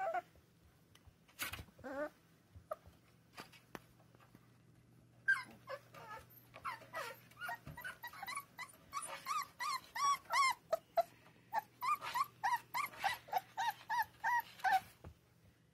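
Three-and-a-half-week-old American Staffordshire terrier puppies whimpering and yelping: a few scattered short cries at first, then from about five seconds in a fast run of high, squeaky yelps, several a second, until near the end.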